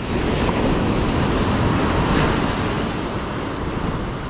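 Ocean surf breaking and washing up the beach, a loud rush of foaming water that swells right at the start and eases off toward the end.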